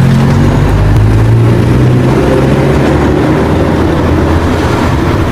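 Taxi cab's engine running steadily with road and traffic noise. A strong low engine hum in the first couple of seconds gives way to a more even rumble.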